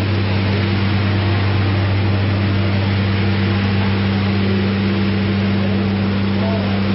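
Steady drone of running machinery in a steel ship compartment: a strong low hum over an even hiss, unchanging throughout.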